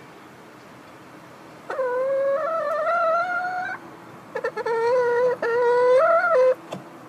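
A laying hen in a nest box giving two long, drawn-out whining calls, the second begun by a few short stuttering notes. Typical of the pre-laying or gakel call of a hen settling on the nest to lay.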